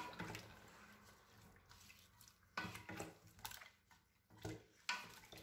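Wooden spoon stirring raw mutton, onions and whole tomatoes in a stainless steel pot: faint wet stirring with a few sharp knocks and scrapes of the spoon against the pot.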